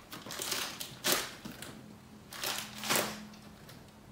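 Plastic bag of frozen cauliflower rice crinkling and crunching as it is pressed and slid along a leg, in about four short rustles.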